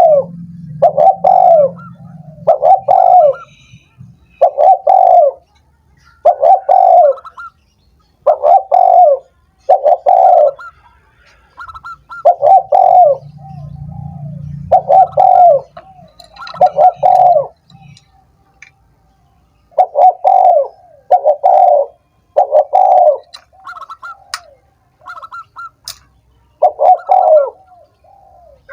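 Spotted dove (tekukur) cooing: the same short coo phrase repeated over and over, about every one and a half to two seconds, with a few longer pauses.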